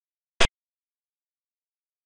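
A single short, sharp click about half a second in: the move sound of a xiangqi (Chinese chess) board program as a piece, the black chariot, is set down on its new point.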